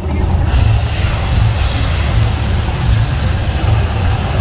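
Mirage volcano eruption show: a loud, deep, steady rumble, joined about half a second in by a rushing hiss as the water jets and gas flames erupt.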